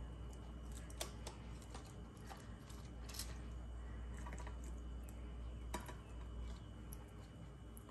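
Faint scattered clicks and rustles of hands laying spring onion stalks and lime slices into a glass baking dish around whole mackerel, over a steady low hum.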